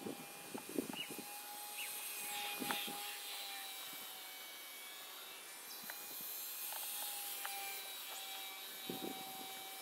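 Small electric motor and propeller of a WLtoys F949 RC plane running with a steady, faint, thin whine, heard from the camera on board, with a few faint ticks.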